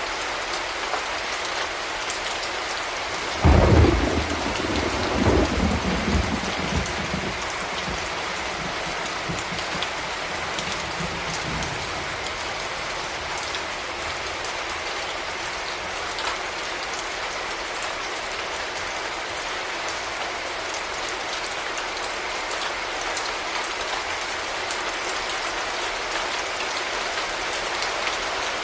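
Steady rain falling, an even hiss. A few seconds in, thunder breaks with a sudden loud crack and rolls on in waves for about eight seconds before fading back under the rain.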